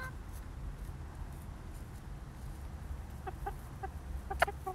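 Young chickens giving a few short, soft clucks about three seconds in, over a low steady rumble, followed by one sharp click just before the end.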